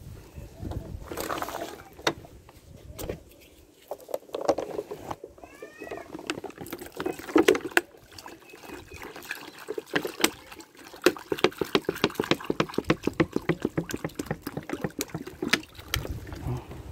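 Water poured from a plastic drinking-water bottle into a plastic bowl, the bottle glugging in a quick, even rhythm of several glugs a second through the second half.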